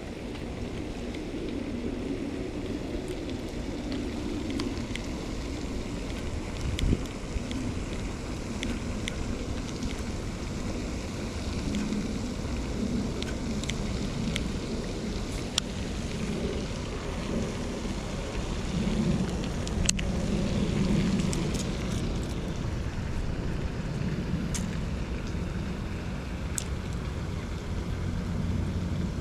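Wind buffeting the microphone over a steady low rumble, with a few faint, sharp clicks scattered through.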